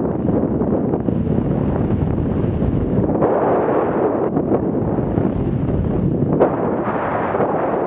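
Wind rushing over a moving camera's microphone during a downhill ski run, mixed with the scrape of skis on packed snow, with a brief sharp click about six and a half seconds in.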